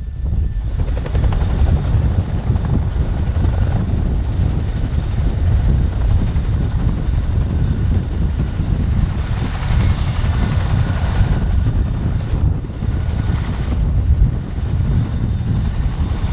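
US Army Boeing CH-47 Chinook tandem-rotor helicopter running on the ground with both rotors turning: a loud, dense low rumble with a faint steady high whine above it.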